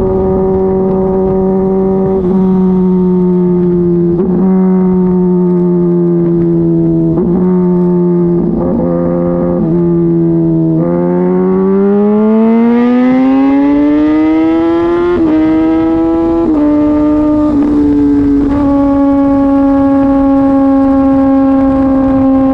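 Kawasaki ZX-10RR inline-four running through an Arrow exhaust with the baffle removed, a loud droning note at steady cruising revs with brief dips every couple of seconds. A little past halfway the revs climb smoothly for about four seconds, then settle a little lower in a few small steps.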